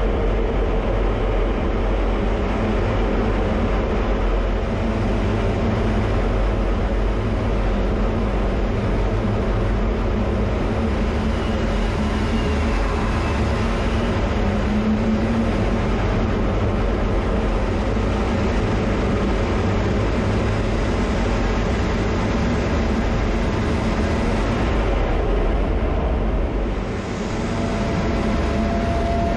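Jet aircraft in flight, heard from inside the cockpit: a steady, loud noise of engine and rushing air. The noise dips briefly near the end.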